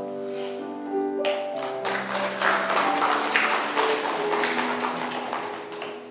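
Audience applauding, starting about a second in and dying down near the end, over slow, soft piano music with sustained notes.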